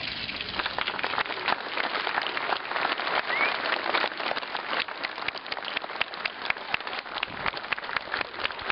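Crowd applauding: a dense patter of many hands clapping that thins out about halfway through into scattered individual claps.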